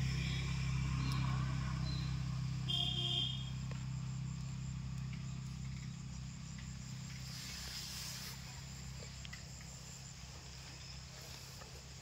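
Low steady rumble of a vehicle engine fading away, with a short horn toot about three seconds in, over a faint steady chirring of insects.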